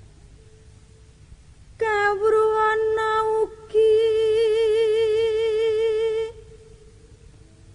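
A solo high voice singing slow, long-held notes with a wide vibrato in two phrases, with no accompaniment heard. The singing begins about two seconds in, breaks briefly near the middle and stops shortly after six seconds.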